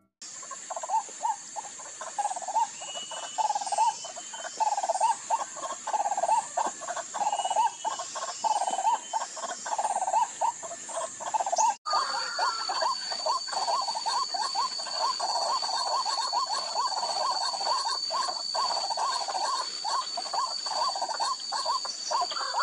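White-breasted waterhen (ruak-ruak) calls: a fast, rhythmic series of croaking notes repeated over and over, with a steady high insect whine above them.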